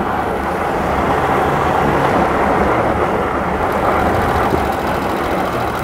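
Pickup truck driving, a steady, noisy rumble of engine and tyres.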